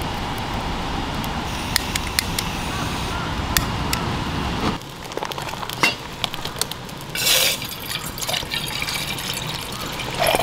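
Water poured from a kettle into a stainless-steel Stanley cup standing over a wood fire, near the end. Before that, steady low outdoor noise with a few sharp clicks, which drops away about five seconds in, leaving scattered small clicks.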